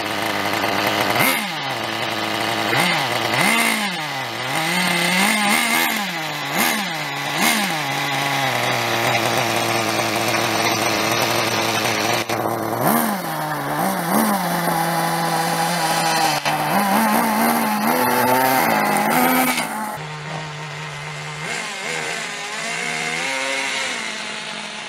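Thunder Tiger Pro-18BXS nitro glow engine of a 1/10 RC monster truck, revved up and back down several times in quick blips, settling to a steady idle between revs. About twenty seconds in it turns quieter and more distant as the truck drives off.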